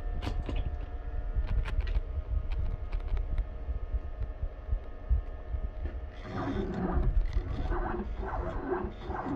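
CNC lathe with a steady low hum and a few sharp clicks in the first few seconds. About six seconds in, the axis drive motors begin whining in short, wavering bursts whose pitch shifts as the carriage is jogged with the handwheel pendant.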